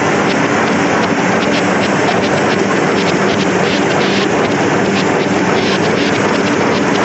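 Heidelberg Speedmaster XL 105 sheetfed offset printing press running: a loud, steady mechanical noise with a low hum and faint light clicking on top.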